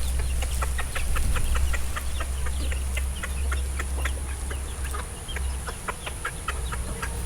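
A flock of chickens with chicks, full of many short, high cheeps in quick succession over a steady low rumble.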